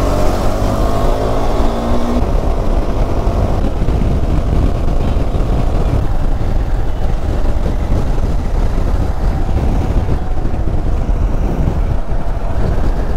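KTM 390 Adventure's single-cylinder engine running on the move under heavy wind rush on the microphone, its note sliding up in pitch in the first two seconds.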